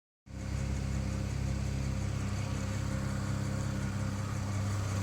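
BMW N54 twin-turbo straight-six idling steadily, with a fast, even ticking over the engine note whose cause the owner cannot identify.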